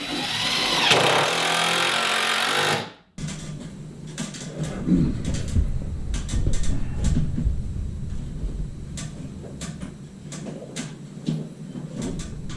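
A power tool runs for about three seconds, its pitch rising as the motor spins up, then cuts off abruptly. Scattered knocks and clicks of work on wood follow.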